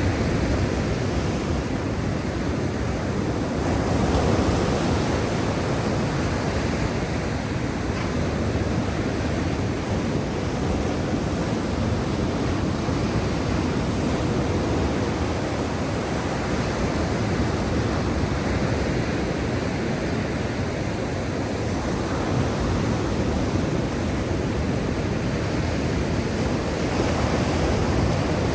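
Sea waves breaking and washing in a continuous, even rush of noise, swelling slightly about four seconds in and again near the end.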